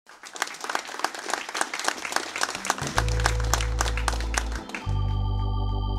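Audience clapping that thins out over the first few seconds while the band comes in: long steady low notes from about three seconds in, then, about five seconds in, a sustained organ-toned keyboard chord.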